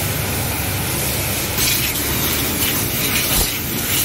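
Water spraying steadily from a hose wand onto a van's engine, a continuous hiss of spray with a low hum underneath.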